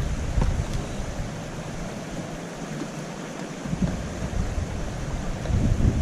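Wind buffeting the microphone in low, gusty rumbles over a steady rushing hiss; the buffeting drops away for about two seconds in the middle and builds again near the end.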